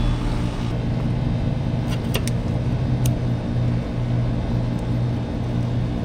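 Steady low hum of air-conditioning equipment running, with a few light clicks about two and three seconds in.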